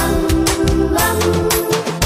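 Instrumental backing music of a children's song with a steady beat and no singing.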